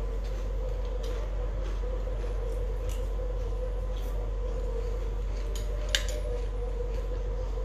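Metal spoons clinking and scraping in ceramic cereal bowls, with a sharper clink about six seconds in, over a steady low hum.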